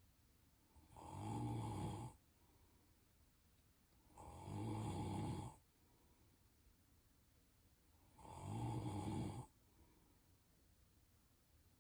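A sleeping man snoring: three snores, each about a second or a second and a half long, coming about every three and a half seconds, with quiet between them.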